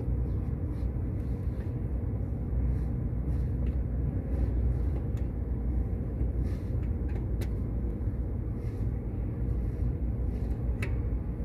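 A steady low mechanical rumble with a few faint clicks.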